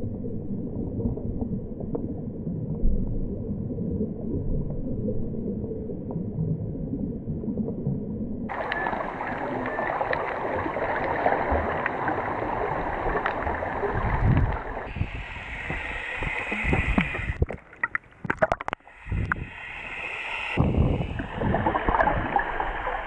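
Muffled underwater gurgling and water noise against a submerged action camera's housing while snorkelling. About eight seconds in it turns brighter and fuller, and a little past halfway it cuts in and out several times with sloshing.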